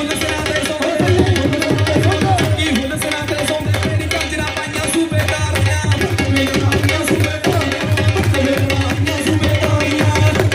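Loud Punjabi folk dance music with a fast, driving drum beat, with hand-clapping from the dancers.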